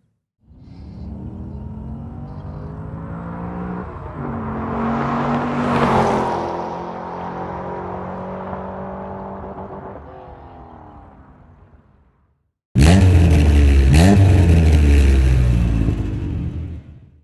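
Car engine approaching and passing by: it builds to a peak about six seconds in, then fades away with its pitch dropping. After a brief gap, a louder engine revs up and down several times and cuts off near the end.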